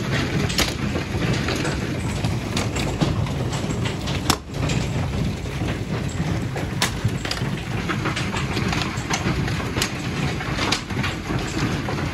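Hailstorm: hailstones pelting down on parked cars and a gravel drive, a dense steady clatter full of sharp individual hits.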